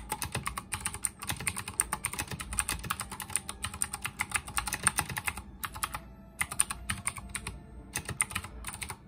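Fast typing on a mechanical keyboard: a rapid clatter of key clicks that stops briefly a little past halfway, then resumes in shorter runs.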